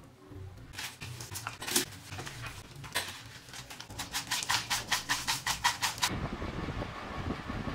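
Dry bhel puri mix of puffed rice and sev tossed around a bowl by hand, a quick run of crisp rustling rattles about five a second, after a few scattered clicks. Near the end it gives way to a denser, lower rustle.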